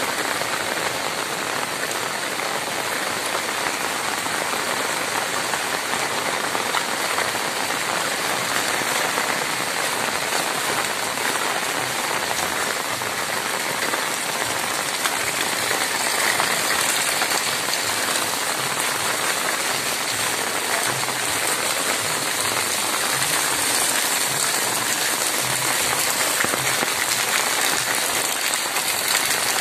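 Heavy rain falling steadily onto a waterlogged street, a constant even hiss of rain hitting wet pavement and standing water.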